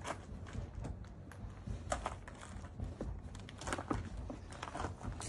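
Upholstered foam seat and bed cushions being lifted and laid onto a camper van's bed platform: soft bumps and rustling, with a few light knocks about two seconds in and around four seconds in.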